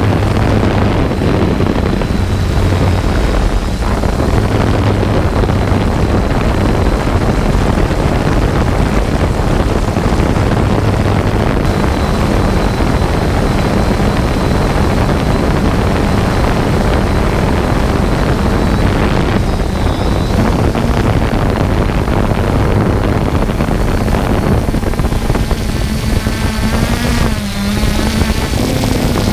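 3DR Solo quadcopter's electric motors and propellers buzzing steadily, with wind noise on the microphone. Near the end the motor pitch wavers and dips briefly.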